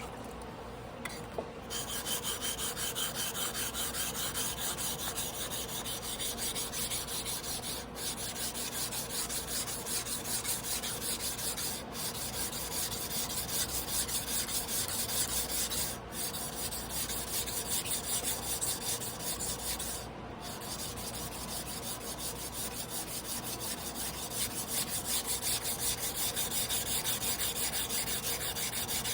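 Carbon-steel sashimi knife blade being rubbed back and forth on a whetstone by hand: a steady, rapid rasping scrape with brief pauses every few seconds.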